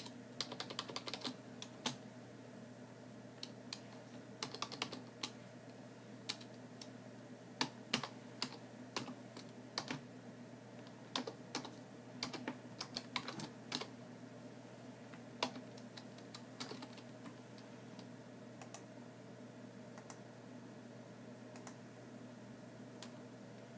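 Typing on a computer keyboard: keystrokes in irregular bursts that thin out after about 17 seconds, over a steady low hum.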